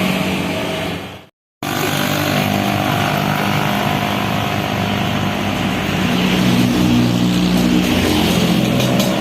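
Large tour bus engine running steadily with road noise. The sound cuts out completely for a moment about a second in, then comes back.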